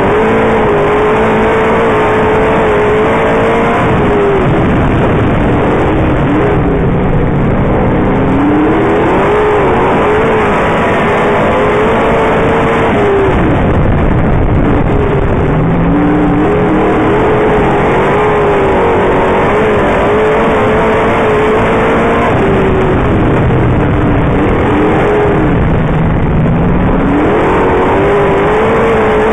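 The 358 small-block V8 of a dirt modified race car, heard loud from on board. Its pitch drops several times as the car lifts off for the turns, then climbs again as it accelerates down the straights.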